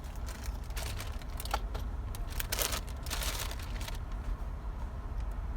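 Low rumble of an idling car heard from inside the cabin, with a run of irregular clicks and rustles from about half a second to four seconds in.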